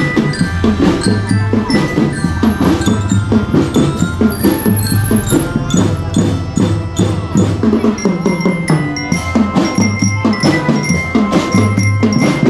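A school drum band playing: snare and bass drums keep a steady beat while metal bell lyres carry a ringing melody over it.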